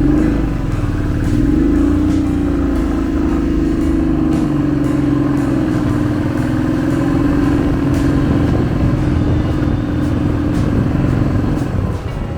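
Motorcycle engine running steadily while riding, its pitch holding nearly level with a slight rise about a second in.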